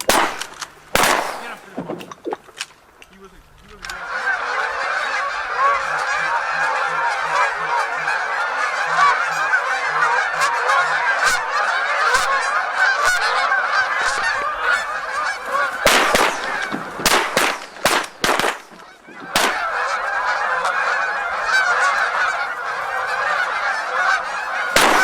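A large flock of geese honking in a dense, continuous chorus, with a short break near the middle. Several sharp bangs come at the start and in a cluster about two-thirds of the way through.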